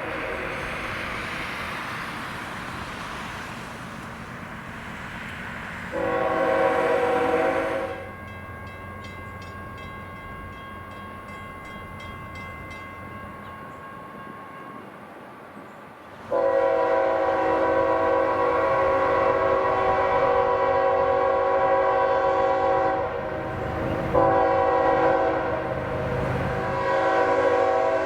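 CSX freight locomotive's multi-chime air horn sounding: a short blast about six seconds in, then a long blast from about halfway that briefly dips and carries on to the end. Between the blasts, the quieter rumble of the passing train.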